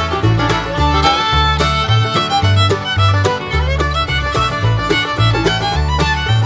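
Background music: an upbeat fiddle tune over a bouncing bass line, in a bluegrass or country style.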